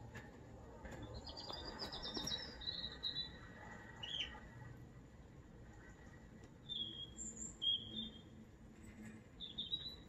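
American Singer canary singing: a quick run of repeated high notes a second or so in, then short bright chirped notes in spurts, with another spurt near the end.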